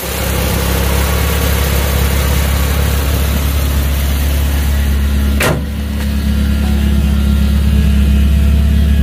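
Nissan Sunny's tuned 1.8-litre 16-valve twin-cam four-cylinder engine idling steadily, with one sharp click about halfway through.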